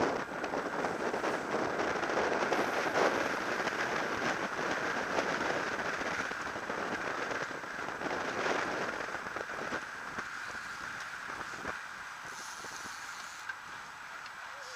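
Wind and road noise on an action camera's microphone riding at speed in a bunch of racing bicycles: a crackling rush that slowly fades.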